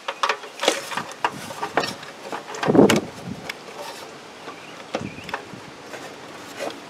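Hands handling wires, connectors and the smoker's black wiring cover: scattered small clicks, taps and rustling, with a longer, louder scrape of handling about three seconds in.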